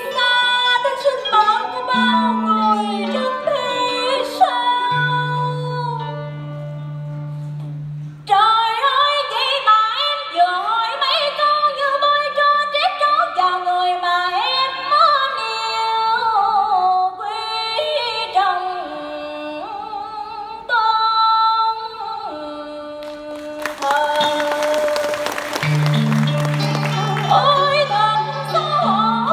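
Cải lương (Vietnamese reformed opera) music: a woman's singing voice over traditional instrumental accompaniment, with sliding melodic lines and held low notes. A brief broad wash of noise comes about three-quarters of the way through.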